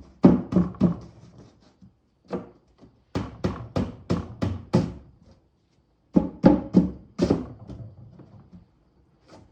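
A thin 1/4-inch wood panel being knocked down into the grooves of a wooden cart frame: three runs of quick, hollow wooden thunks, about three a second, with a lone knock between the first two runs.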